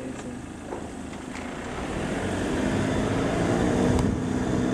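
Game-drive vehicle's engine running, getting louder from about two seconds in as the vehicle pulls away over sand.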